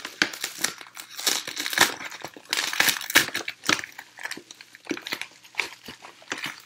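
Plastic bubble wrap crinkling and rustling as hands handle and pull at it around a box, a dense run of irregular crackles.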